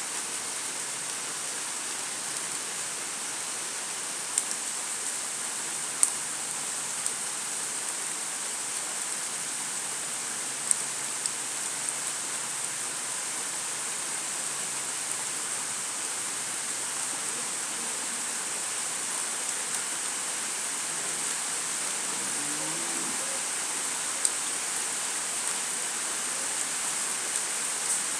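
Steady rain falling, an even hiss, with a few sharp louder drop ticks scattered through it.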